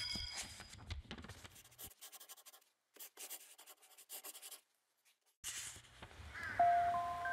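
Scratchy rubbing sounds, like writing strokes on paper, come in a quick run of short strokes and stop about four and a half seconds in. After a short silence comes a brief hiss, and near the end a few bright mallet-percussion notes begin.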